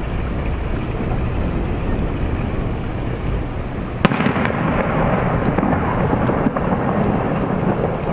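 Aerial firework shells bursting over a steady rumble of earlier bursts. One sharp report about four seconds in is followed by a dense, rumbling, crackling tail with a few smaller cracks.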